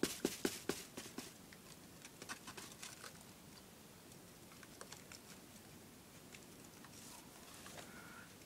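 Baking soda being added to a plastic bottle: a quick, faint run of light ticks and taps that thins out after about a second and a half, leaving a few scattered taps.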